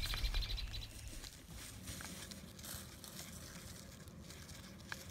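A bird gives a quick run of repeated high chirps that stops about a second in, over a low rumble that fades at the same time. After that, faint outdoor background with light rustling.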